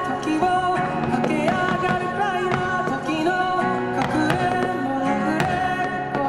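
An anime song playing, with a sung melody over instrumental backing.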